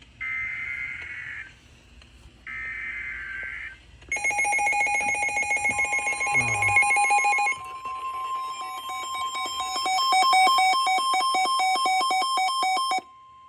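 Emergency Alert System (EAS) alert on NOAA Weather Radio: two harsh, screeching SAME data bursts about a second long each, then a loud electronic alarm ringing with rapid pulses, with a steady single-pitch warning tone joining it about six seconds in. Together they announce an incoming alert.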